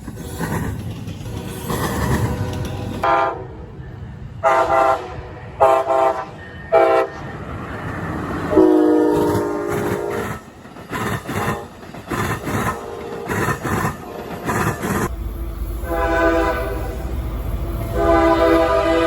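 Locomotive air horn sounding a salute, a chord of several notes at once: a few short blasts, a longer blast, a quick run of short toots, then a long held blast near the end. The rumble of the train runs underneath.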